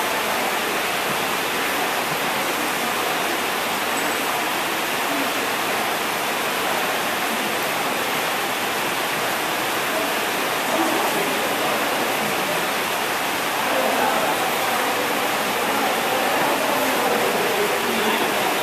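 Steady rushing background noise with indistinct chatter of people talking.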